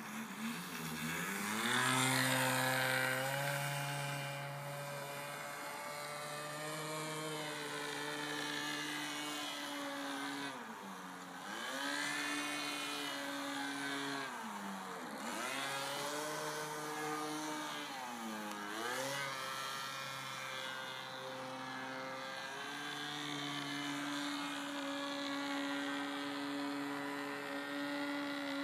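Scratch-built fun fly RC model aeroplane's engine running in flight, its pitch climbing about two seconds in and then dipping sharply and recovering three times in the middle, with steadier stretches between.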